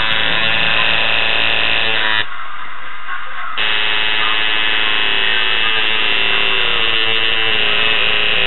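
Electric tattoo machine buzzing steadily while tattooing. It stops sharply about two seconds in and starts again a second and a half later.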